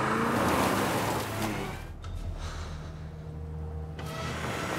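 Car engine revving with tyre noise as the car is driven hard in reverse. About two seconds in it eases off to a low steady rumble.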